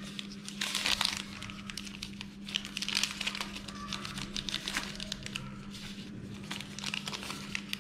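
Clear plastic packets of drone propellers crinkling and crackling as they are handled and laid out, in irregular bursts, over a steady low hum.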